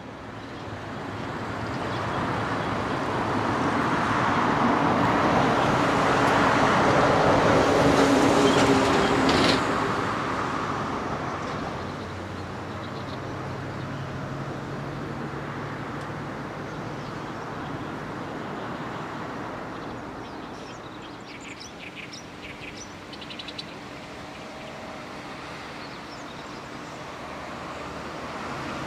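Road traffic: a heavy vehicle's engine and tyre noise builds for several seconds, peaks about eight seconds in, and falls away after about ten seconds. Then a steadier, quieter traffic hum follows, with a few short high chirps a little past the middle.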